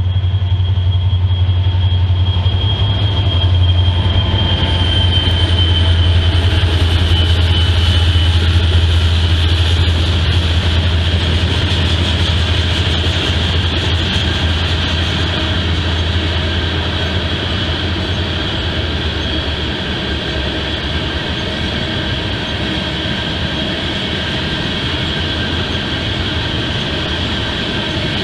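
Freight train passing: a diesel locomotive's low engine hum that fades after the first quarter of a minute, then tank cars rolling by with a steady rumble of wheels on rail. A thin high wheel squeal, slowly falling in pitch, sounds over the first several seconds.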